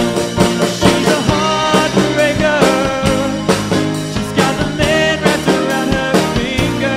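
Rock song playing, with a drum kit keeping a steady beat under melodic lines.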